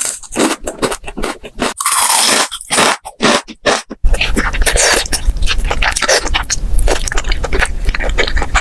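Close-miked eating sounds: scraping for about four seconds, then crunchy chewing that starts abruptly and carries on, with many sharp crackles.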